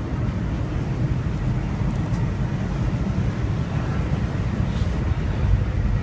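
Steady low rumble of a moving passenger train, heard from inside a Budd dome car as it runs along the track.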